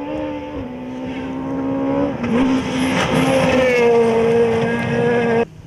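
Ford Fiesta rally car at speed on gravel, its engine held high with the pitch dropping in a couple of steps at gear changes. From about two seconds in the hiss of tyres and flung gravel comes in as the car slides past. The sound cuts off abruptly near the end.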